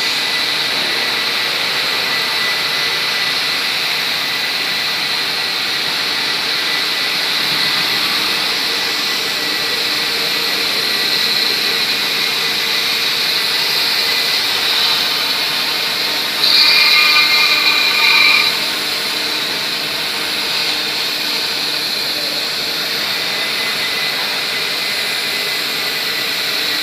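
9 kW HSD spindle on a CNC router whining at speed as it mills polystyrene foam, with the hiss of the cut. It grows louder and shriller for about two seconds a little past the middle.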